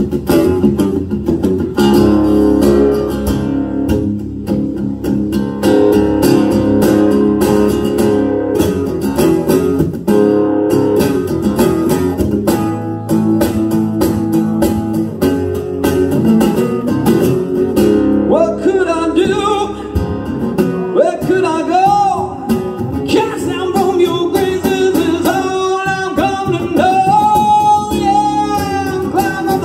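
Live unplugged rock performance: a guitar picks a steady pattern of sustained notes. A little over halfway through, a lead voice starts singing over it.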